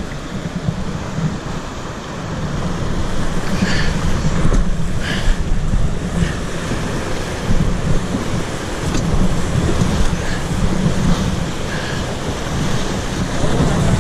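Rapids rushing and splashing around a drift boat running fast, rocky water, with wind buffeting the microphone.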